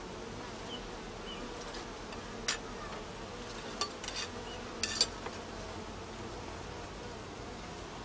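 Honeybee colony humming steadily from an open hive, with a few sharp clicks about 2.5, 4 and 5 seconds in.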